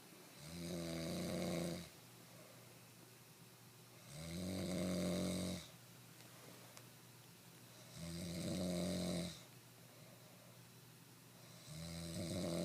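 A person snoring in a steady rhythm: four drawn-out, buzzing snores of about a second and a half each, one roughly every four seconds, with quiet breathing between them.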